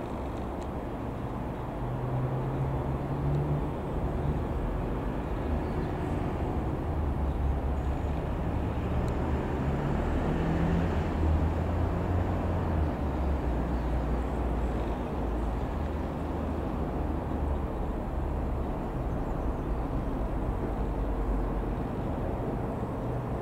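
Single piston engine of a Best Off Nynja Skyranger ultralight running with a steady low drone. It gets louder about two seconds in, is loudest around the middle, then eases a little.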